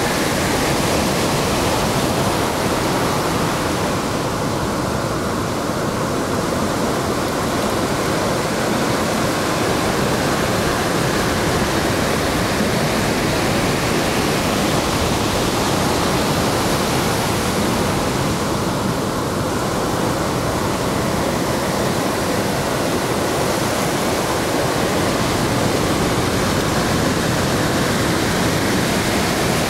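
Small waves breaking and washing up a sandy beach: a steady hiss of surf that swells and eases slowly.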